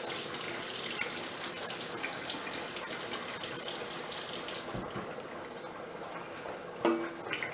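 Kitchen sink faucet running, water splashing over hands being washed, then shut off about two-thirds of the way through with a low knock.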